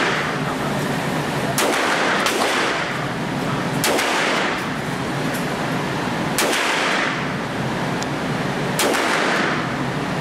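Smith & Wesson Model 28 .357 Magnum revolver fired five times at an uneven pace, with the shots echoing off the walls of an indoor range.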